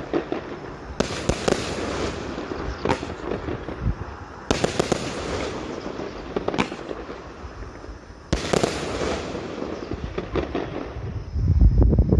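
A 20-shot consumer firework cake firing. Sharp reports come a second or two apart, each followed by a long crackling hiss from the bursting effects. Heavier, louder booms come in near the end.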